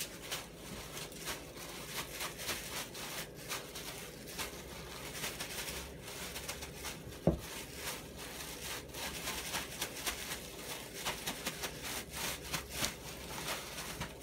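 A plastic bag rustling as fish fillets are shaken and worked in breadcrumbs to coat them, with a single sharp knock about seven seconds in.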